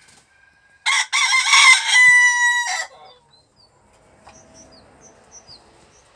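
Sebright bantam rooster crowing once, starting about a second in and lasting about two seconds: a short first note, a rough middle, and a clear held final note that cuts off.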